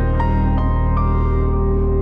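Background music: piano or electric keyboard notes over held synthesizer chords, a calm ambient piece.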